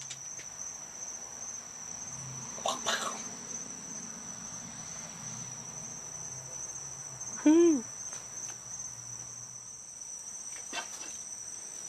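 Steady high-pitched drone of insects calling. A short voiced sound comes about halfway through, and there are a couple of faint knocks.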